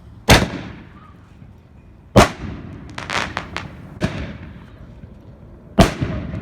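Excalibur canister shell fireworks going off: four loud booms about two seconds apart, each with a short rumbling tail, and a quick run of smaller cracking pops about a second after the second boom.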